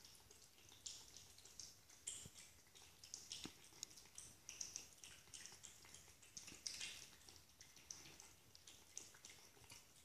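Two cats eating from food bowls: faint, irregular chewing, a quick run of small high clicks several times a second.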